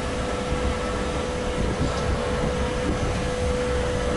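Inside the cab of the ChS200 electric locomotive: the steady rumble of the train running, with a steady mid-pitched hum over it.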